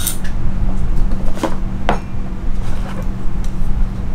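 Handling clicks and light knocks from a KME knife sharpener as the diamond-stone holder on its guide rod is swung over the clamped knife, a handful of them, the sharpest about a second and a half and two seconds in. A steady low hum runs underneath.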